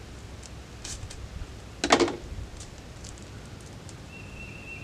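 Small plastic seasoning packet being handled and torn open over the pot: light crinkles with one short, loud rip about two seconds in.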